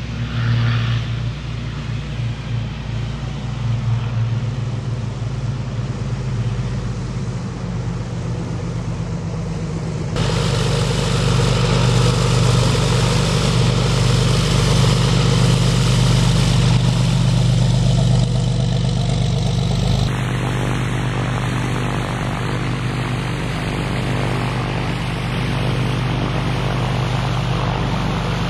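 Light single-engine propeller airplanes running: first a light floatplane on amphibious floats running on the runway, then, after an abrupt change about ten seconds in, a high-wing Cessna taxiing close by, louder, and after another change about twenty seconds in, a steadier drone from an aircraft farther off.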